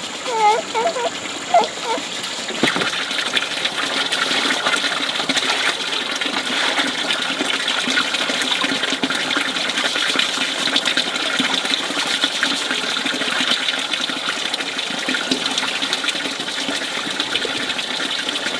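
Water gushing steadily, setting in abruptly about three seconds in.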